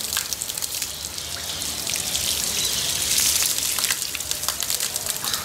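Stream of water pouring from an overhead pipe and splashing onto a person's head and the wet concrete floor, mixed with rain pattering; the splashing swells for a moment about three seconds in.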